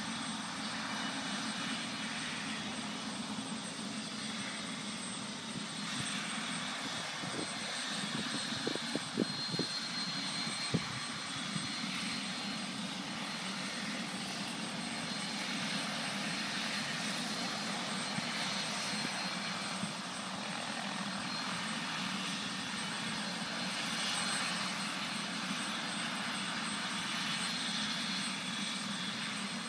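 Helicopter running steadily, a constant engine and rotor drone that does not rise or fall. A few brief knocks come between about seven and eleven seconds in.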